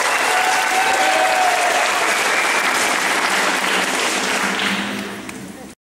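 Audience applauding, with a few voices calling out over the clapping. The applause thins near the end and then cuts off abruptly.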